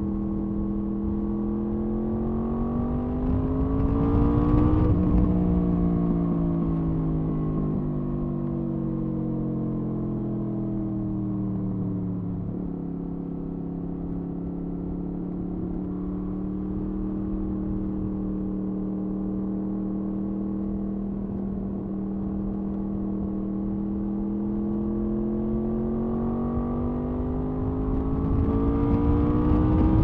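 2007 Honda VFR800A Interceptor's V4 engine running under way. The revs rise briefly about four seconds in, fall away slowly as it slows, hold steady, then climb again near the end as it accelerates, with some wind noise on the microphone underneath.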